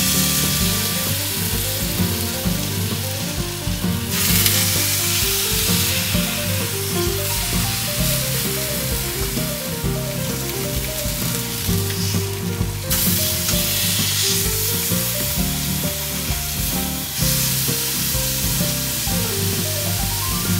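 Beef cheeks searing in hot oil in a frying pan: a loud, steady sizzle that swells and eases a few times.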